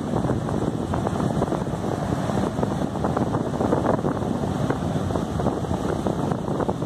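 Strong wind buffeting the microphone over the wash of heavy surf breaking on the beach, a steady, unbroken noise with no lulls.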